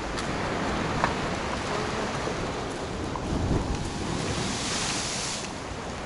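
Heavy storm surf on the Black Sea: waves crashing and churning, with the loudest crash about three and a half seconds in, followed by a high hiss of rushing water a second or so later.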